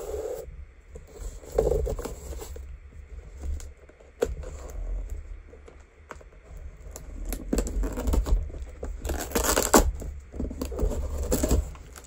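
Cardboard box being cut open with a knife: the blade scrapes and slits the packing tape, with irregular tearing of tape and cardboard and a few sharp clicks. The loudest tearing comes about nine to ten seconds in.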